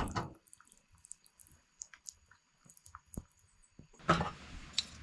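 Crinkling and rustling of instant cup noodle packaging being handled: a short rustle as the lid is pulled back, a few small clicks, then a louder burst of crinkling about four seconds in as a seasoning packet is squeezed over the cup.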